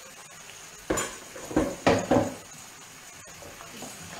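A frying pan and wooden spoon clattering on a gas hob as the pan is handled and stirred: one knock about a second in, then a quick run of three or four knocks. A steady low sizzle from the pan runs underneath.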